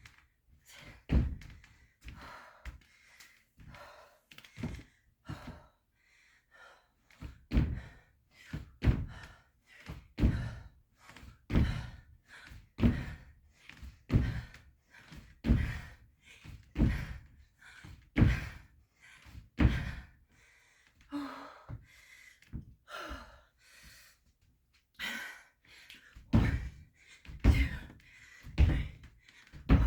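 Feet landing hard on the floor in repeated plyometric jumps, a heavy thud about every second and a half, with hard breathing between landings.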